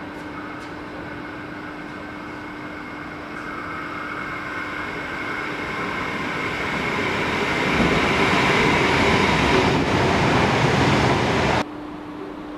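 Adelaide Metro 4000-class electric multiple unit approaching and running through the station without stopping. Its wheel and rail noise grows steadily louder, with a faint whine over it, and cuts off suddenly about a second before the end.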